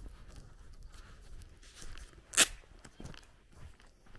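Footsteps of a person walking on an outdoor path, a scatter of soft steps with one short, loud noise about two and a half seconds in.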